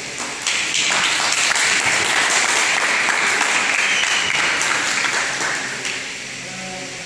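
Audience applauding. The clapping starts about half a second in and fades out near the end.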